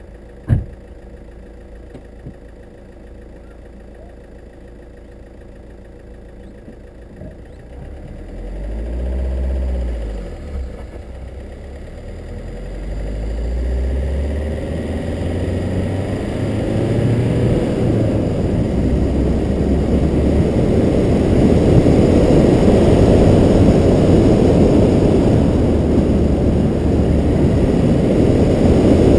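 A car driving on a winding mountain road, heard from a camera mounted on its hood. It is quiet at first, with one sharp knock about half a second in. From about eight seconds the engine note rises and falls, and a rushing driving noise keeps growing louder.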